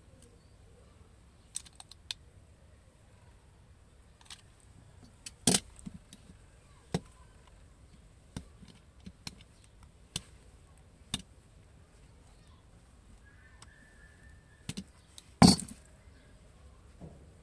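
Scattered sharp clicks and snaps of a utility knife blade and pliers cutting and stripping a thin coaxial cable's jacket and insulation, with two louder snaps, about five seconds in and near the end.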